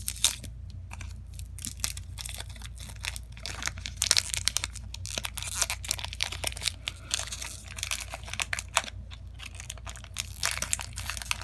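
Old wax-paper wrapper of a 1983 Topps baseball card pack being slowly and carefully torn and peeled open, with irregular crinkling and tearing throughout.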